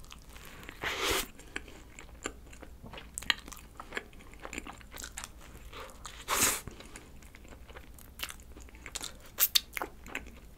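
Close-up eating sounds of a soft bun filled with cream, red bean and rice cake being bitten and chewed: many small wet mouth clicks and smacks, with two louder bites, about a second in and about six and a half seconds in.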